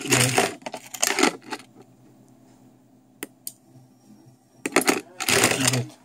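Plastic gate remote controls and their metal key rings clattering and jangling as they are handled on the desk, in two bursts: one at the start and one near the end, with two sharp clicks in between.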